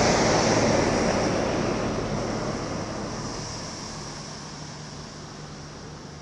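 Quadcopter drone's propellers whirring, fading steadily as it climbs away.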